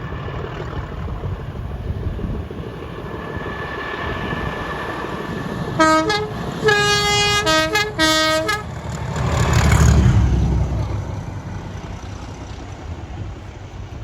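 A locomotive's two-tone horn sounds several blasts, short and long, alternating a low and a high note, then the train passes close, its low engine rumble loudest about ten seconds in and fading after.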